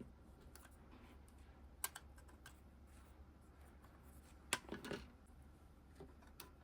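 Faint, scattered clicks and taps of small tools and plastic parts being handled on a workbench, with a sharper click about two seconds in and a quick cluster of clicks near the five-second mark.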